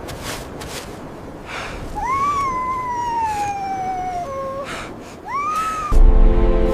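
A puppy whining: one long whine that slides slowly down in pitch, a brief lower note, then a shorter rising whine. The whines come over crunching footsteps in snow.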